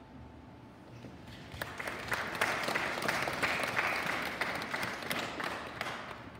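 Audience applauding, starting about a second in, swelling to a peak and dying away near the end.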